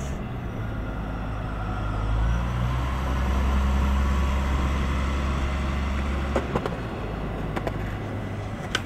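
Wheel loader's diesel engine running as the machine drives past, building to its loudest mid-way and fading out. A few sharp clicks near the end.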